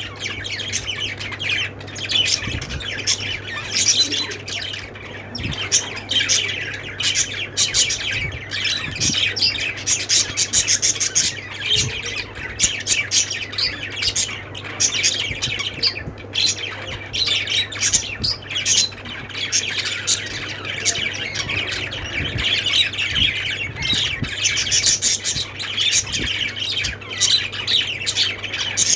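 Small pet parrots, budgerigars or lovebirds, chirping and squawking in a constant busy chatter over a steady low hum.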